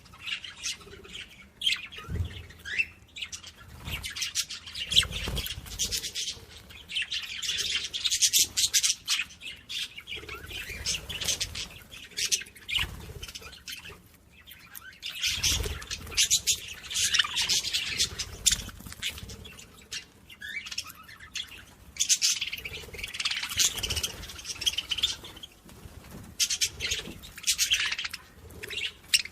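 Small birds chirping and twittering rapidly, in dense waves that swell and ease off, with a few low thumps underneath.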